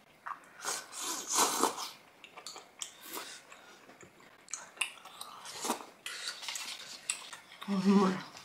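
Close-miked eating: metal chopsticks clicking and scraping against plastic dishes, with chewing of spicy rice cakes (tteokbokki). A brief hummed voice near the end.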